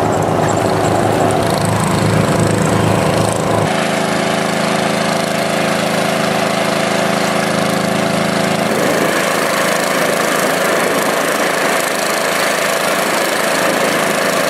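Engines running steadily, with an abrupt change in the sound about four seconds in.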